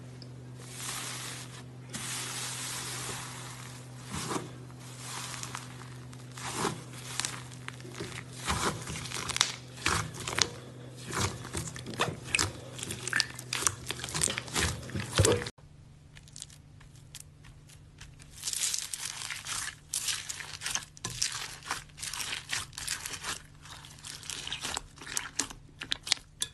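Slime being squeezed, stretched and poked by hand, making irregular sharp crackles, pops and squelches over a steady low hum. The sound changes abruptly to a quieter stretch of the same kind about halfway through.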